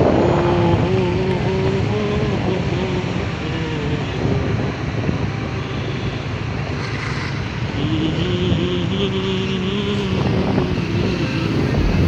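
Motor scooter engine running under way, its hum wavering up and down in pitch with the throttle, over wind and road noise.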